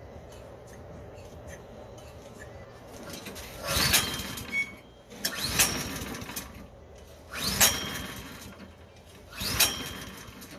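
Briggs & Stratton 163cc snowblower engine cranked four times, about two seconds apart, each crank rising briefly and dying away without the engine catching.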